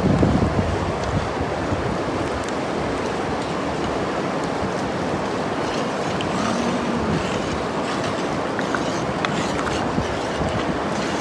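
Rice being stirred in water in a steel basin with a metal spoon: water sloshing, with a few faint clinks of the spoon. A steady rushing noise underlies it all and is the loudest part.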